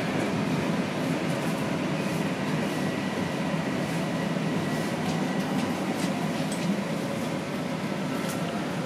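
Toronto Rocket subway train braking into a station, heard from inside the car: a steady rumble of wheels and running gear, with a faint high whine held for a few seconds in the middle.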